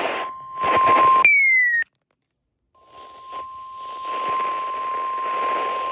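A steady single alert tone near 1 kHz over radio static, the weather-radio warning alarm tone that comes before a broadcast warning. About a second in, the tone stops with a short falling chirp, and there is a brief moment of silence. About three seconds in, the static returns with the same steady tone over it.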